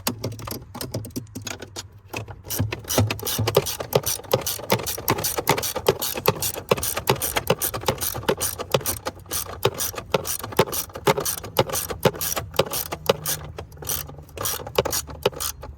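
Ratchet wrench clicking in quick, uneven runs, many clicks a second, as a mounting nut is tightened on a stud.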